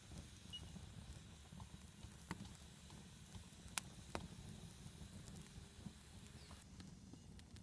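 Small campfire of dry sticks and bark, just lit and burning, giving faint crackling with a few sharp pops over a low steady rumble.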